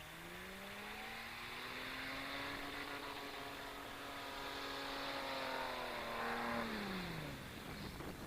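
Off-road 4x4's engine revving up as it takes on a hill climb, held at high revs for several seconds, then the revs falling away near the end.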